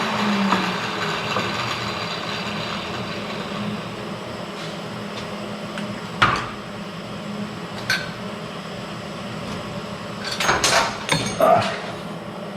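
A cutoff wheel winding down, its pitch falling and dying out within the first second. Then a low steady hum, with sharp metal clicks and clanks of tools and parts being handled: single ones about six and eight seconds in and a quick cluster between ten and eleven and a half seconds.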